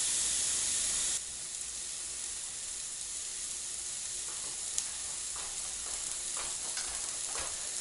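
T-bone steak sizzling on an electric indoor grill, a steady hiss. About a second in it drops abruptly to a quieter sizzle, with a single small tick near the middle.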